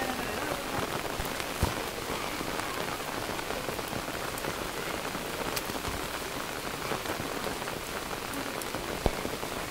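Steady heavy rain, with two sharp knocks standing out above it, one about a second and a half in and one near the end.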